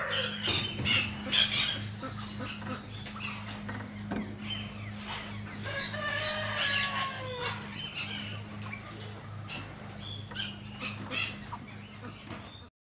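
Peacock in full display, shaking its fanned train so the feathers rustle and rattle in short bursts. A drawn-out, slightly falling bird call comes about six seconds in, over a steady low hum.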